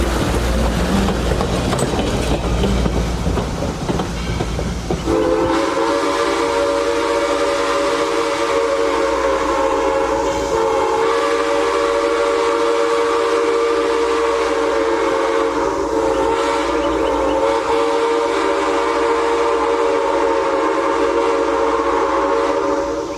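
Southern Railway 630, a 2-8-0 steam locomotive, rumbling along with its train for about five seconds, then its steam whistle sounding one long chord of several tones held for nearly twenty seconds.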